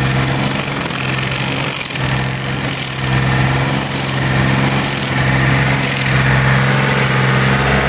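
Large stump grinder running steadily under load, its engine humming while the cutting wheel grinds into a tree stump and throws out wood chips.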